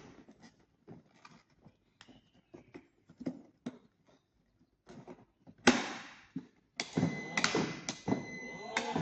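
Scattered sharp clicks and taps of small parts being handled, then a loud rushing burst about six seconds in. From about seven seconds a small electric motor runs with a steady high whine, dropping out briefly and starting again, as the replaced high/low speed switch is tried.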